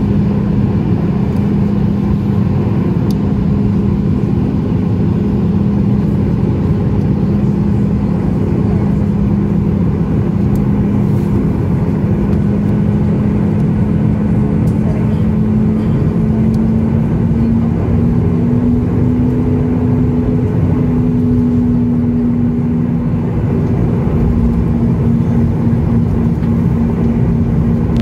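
Cabin noise of a Boeing 737 MAX 8 taxiing, its CFM LEAP-1B engines running at taxi power: a loud, steady rumble with a low hum that rises slightly in pitch a little past halfway.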